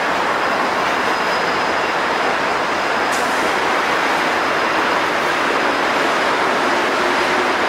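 A train rolling past, a steady rush of wheel-on-rail noise with a faint high ringing tone above it.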